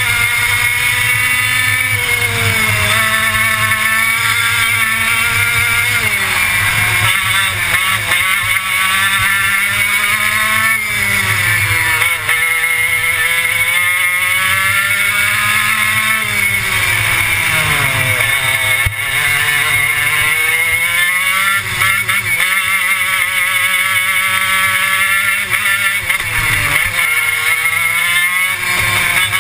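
Racing kart engine at speed, heard from on board. Its pitch climbs steadily under throttle, then drops sharply as the driver lifts for a corner; this happens about four times before it climbs again.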